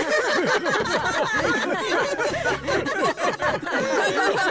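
A group of boys and men laughing together, many voices overlapping in chuckles and laughs.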